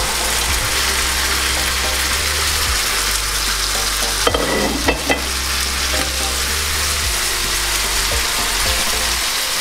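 Pieces of salted fish sizzling steadily as they fry in oil in a non-stick frying pan, with a few sharp knocks about halfway through as the fish is handled in the pan.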